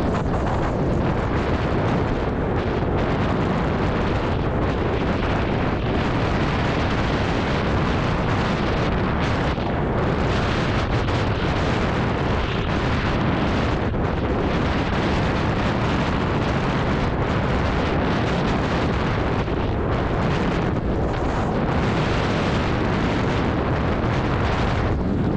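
Heavy wind buffeting on an action camera's microphone while riding an electric scooter: a steady, dense rushing noise that doesn't let up.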